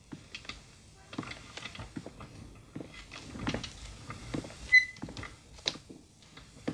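Tableware being handled and set down on a small table: scattered light clicks and knocks, with one bright ringing clink just under five seconds in.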